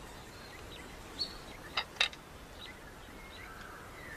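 Scattered short bird chirps and calls over a steady faint background hiss, with two sharp chirps close together about two seconds in.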